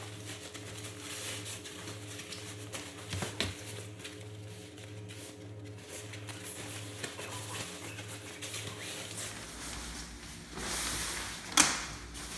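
Fabric rustling and scattered small clicks as a bulky cloth bundle is handled and its strap pulled, over a steady low hum. A louder rustle swells near the end and finishes in one sharp click.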